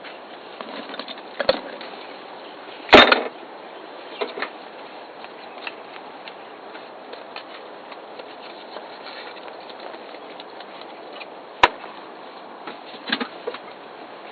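Steady outdoor background hiss broken by a few scattered knocks and clicks: a loud short clatter about three seconds in and a single sharp click near the end.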